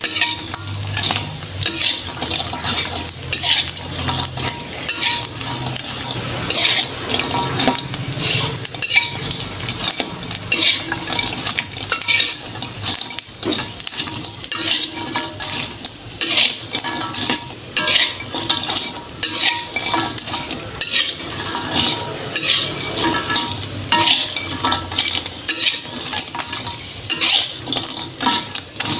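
A utensil stirring and scraping in a pan, with frequent irregular clinks and scrapes over a steady frying sizzle.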